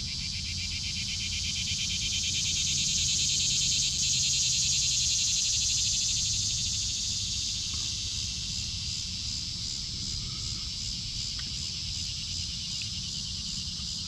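Insect chorus with a fast, pulsing buzz, swelling louder a couple of seconds in and easing back after about six seconds.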